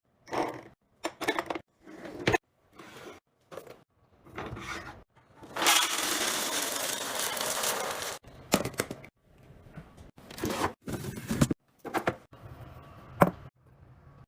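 Handling sounds from restocking a fridge: a string of short rubs, scrapes and rustles of containers and packaging, with sharp clicks about two seconds in and near the end. A loud steady rush of noise lasts about two and a half seconds, starting just before the halfway point.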